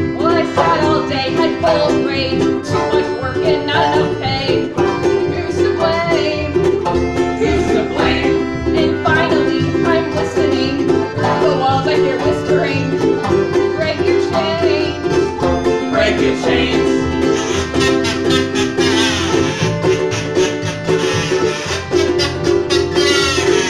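Acoustic band playing: a banjo picked over held piano-accordion chords, with a ukulele strumming along.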